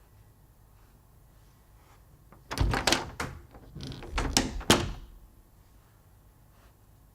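A house door being worked: a run of latch and handle clicks and wooden knocks over about two and a half seconds in the middle, with a brief squeak and a last sharp clack as the door shuts. Quiet room tone comes before it.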